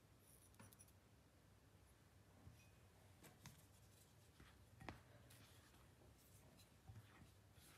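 Faint scraping and scattered light knocks of a silicone spatula stirring dry flour in a glass bowl, the sharpest knock about five seconds in, over a faint low hum.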